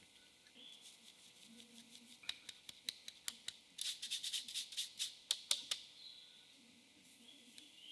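Hand tapping the rim of a plastic fine-mesh sieve to sift cake flour: a run of light, quick ticks that starts about two seconds in, comes thick and fast in the middle and stops about two seconds before the end.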